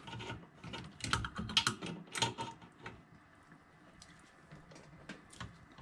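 Irregular metallic clicks and taps from tool work on a newly fitted brass boiler drain, dense for the first three seconds and then thinning to a few faint ticks.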